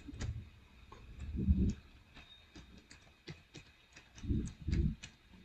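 Irregular keystrokes on a computer keyboard as a password is typed, with a few louder low thuds about a second and a half in and again near the end.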